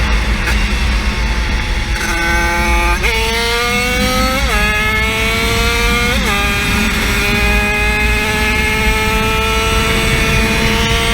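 50cc engine pulling hard under full throttle. Its pitch climbs, breaks back sharply about four and a half and six seconds in as if shifting up, then holds a slowly rising note over a heavy low rumble.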